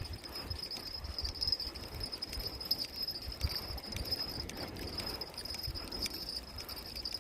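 Night insects chirring in one steady, high-pitched band, with irregular low rumbling underneath.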